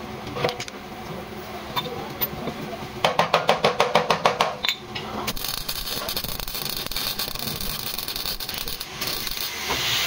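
Body-shop work on a car: a few scattered clicks, then a quick run of about a dozen sharp taps in under two seconds. From about five seconds in a steady loud hiss takes over.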